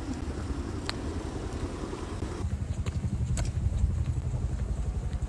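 Low, steady rumble of a vehicle engine running, with a rapid flutter and a few faint clicks.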